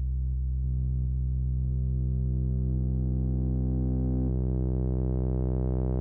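Behringer UB-Xa analog polysynth holding a low, buzzy sustained note. It grows steadily brighter as its upper harmonics swell.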